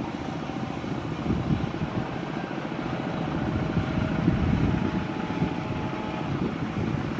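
Two CC201 diesel-electric locomotives at the head of a fuel tank-car train, approaching from a distance: a low, fluttering engine rumble that grows steadily louder.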